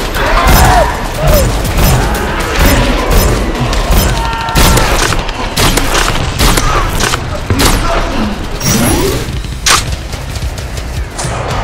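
Action music with many loud booming shot and impact effects scattered through it, and a few short vocal cries.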